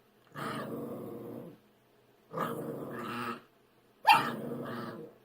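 Dog growling three times, each growl about a second long with short pauses between, the last one starting loudest.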